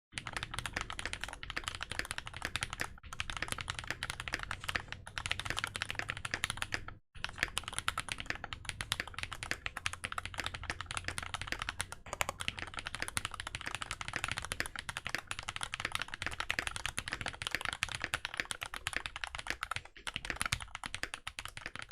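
Custom-built mechanical keyboard typed on quickly and continuously: a dense run of keystroke clacks, broken by a brief pause about seven seconds in.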